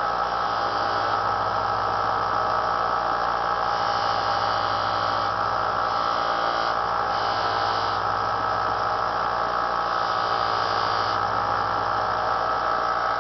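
Small bench belt sander's electric motor running steadily while a knife is sharpened on it, with a higher hiss that swells and fades a few times as the blade is worked against the belt or buffing wheel.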